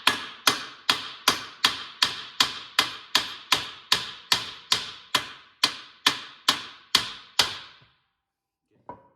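Steady hammer blows on a seized front control arm of a BMW E36 M3, knocking to free it from its mounting. About twenty sharp metallic strikes come at roughly two and a half a second, each ringing briefly, and they stop near the end.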